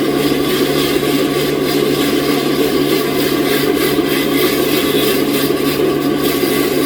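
Sawmill saw running and cutting through a large log: a loud, steady noise with a constant machine hum underneath.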